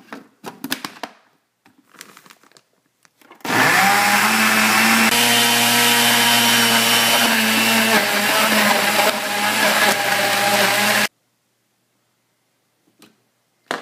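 Countertop blender running steadily for about seven seconds as it purées spinach, strawberries and juice, then switched off abruptly. A few light clicks come before it starts.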